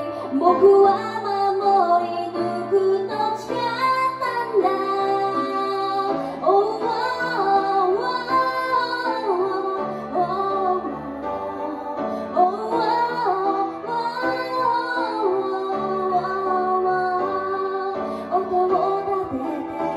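A woman singing a song into a microphone, accompanied live on grand piano; her voice glides between held notes over sustained piano chords.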